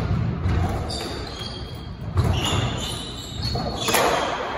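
A rally on a squash court: the ball cracks off racquets and walls several times, sharpest about two seconds in and near the end. Court shoes squeak briefly on the wooden floor, with thudding footsteps, and the hall echoes.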